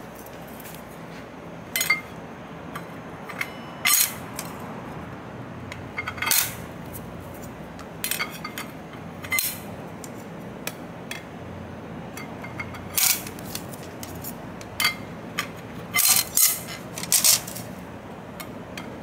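Steel and brass clutch plates of a Twin Disc MG509 marine gear clinking against each other and the splined hub as they are set one at a time onto the clutch pack. About a dozen sharp metallic clinks come at irregular intervals, several in quick pairs near the end, over a faint steady hum.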